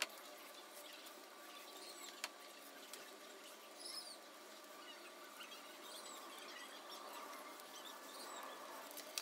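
Faint, crackly rolling of a small paint roller spreading wet black paint over a sheet-steel tabletop, with two sharp clicks and a few brief high chirps about four seconds in.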